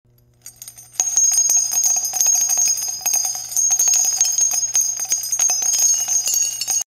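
Bright jingling bell chimes of an intro sound effect: a shimmering ringing made of many quick strikes over a steady high tone, starting suddenly about a second in.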